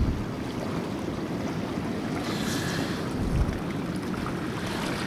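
Wind buffeting the microphone over rippling open water, a steady low rumble with a few thumps. A brief hiss about two and a half seconds in.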